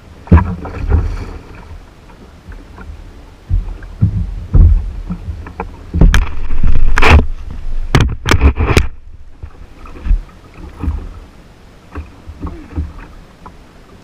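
Irregular loud knocks and thumps on and around a plastic fishing kayak while a large jack crevalle is handled and lifted from the water alongside, with the loudest cluster about six to nine seconds in.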